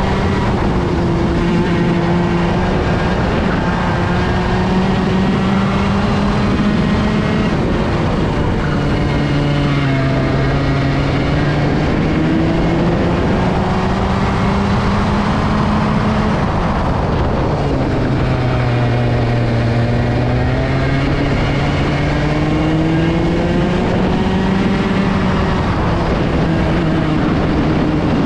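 Racing kart's Woltjer-built engine running flat out, heard on board: the revs climb steadily along the straights and fall sharply twice as the kart slows for corners, then climb again.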